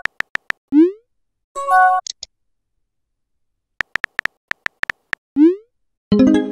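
Phone messaging-app sound effects: runs of keyboard tap clicks, each followed by a short rising blip as a message is sent. There is a chord-like notification tone about two seconds in and another burst of tones near the end.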